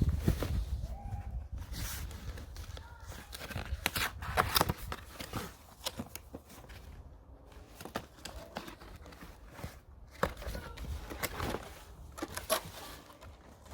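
Packaging being torn open and crinkled while new pannier bags are unwrapped, with irregular sharp crackles and handling knocks.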